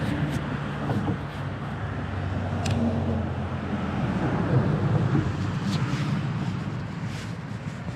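A motor vehicle's engine running nearby, growing louder toward the middle and easing off near the end, with a few faint clicks.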